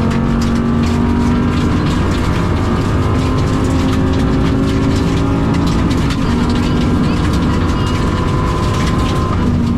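Limited 2WD rally car's engine heard from inside the cabin, running hard and held at a steady, high pitch in one gear while the car is driven flat out. The engine has a bad misfire. Many sharp clicks and cracks sound over it throughout.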